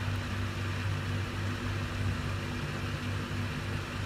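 Steady low hum under an even hiss: constant background room noise.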